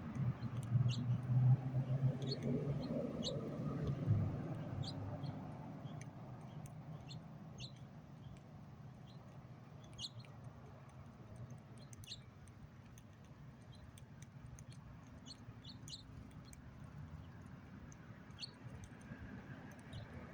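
Birds at a backyard feeder giving short, high chirps, scattered and irregular, over a low background rumble that fades after about five seconds.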